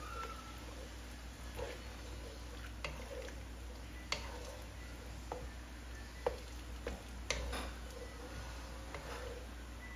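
Wooden spatula stirring a liquid curry in a nonstick wok, with irregular sharp taps and knocks of the wood against the pan over a steady low hum.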